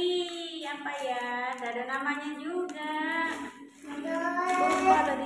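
A child singing, one voice holding long notes that glide smoothly up and down, with a short break about three and a half seconds in.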